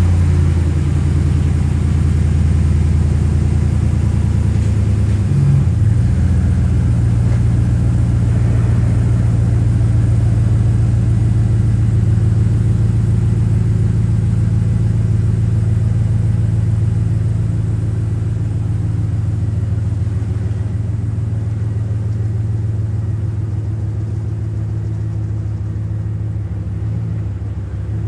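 Ram 1500 pickup truck engine running at a steady, low drone, with a brief change in pitch about five seconds in and a slight drop in level in the second half.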